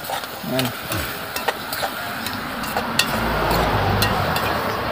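Water poured into a hot pot over a wood fire, hissing and sizzling as it turns to steam, building up about a second in, with scattered sharp clicks from the fire and pot.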